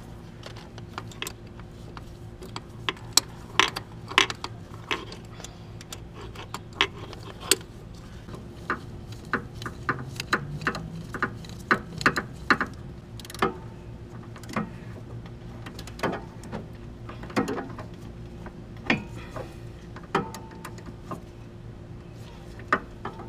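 Hand ratchet on a swivel extension clicking in irregular runs as it tightens a starter mounting bolt, with metal taps of the tool against the engine.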